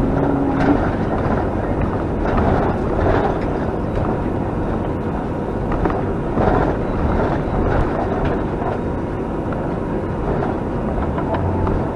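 Steady engine and road noise inside a moving vehicle's cabin, driving slowly, with a brief tone right at the start.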